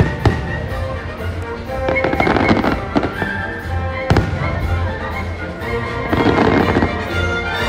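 Aerial fireworks bursting overhead, a handful of sharp bangs with the strongest about four seconds in, over the show's music played through loudspeakers.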